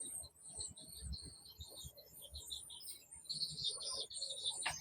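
Faint birdsong: short high chirps repeating in quick runs, busier in the second half, with a few soft low knocks underneath.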